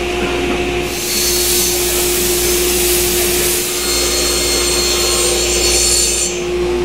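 Sliding table saw cutting through a cabinet panel: a loud, steady hiss of the blade in the board, starting about a second in and stopping near the end, over a constant machine hum.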